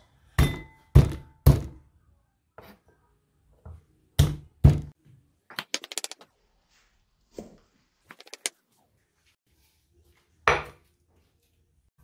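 Kitchen knife striking a thick wooden cutting board while cutting garlic cloves: three heavy thunks in quick succession, two more a few seconds later, then a brief run of light rapid taps and one last thunk near the end.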